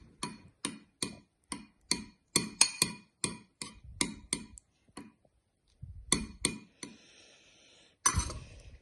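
A utensil stirring liquid glue and colouring in a bowl, clicking against the bowl's side about three times a second. The clicks stop about halfway through, come back twice, and a louder scrape follows near the end.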